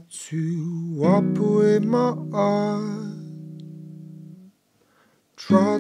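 Acoustic guitar with a capo played: several chords struck in the first half ring out and die away, a brief pause, then a loud chord is struck near the end.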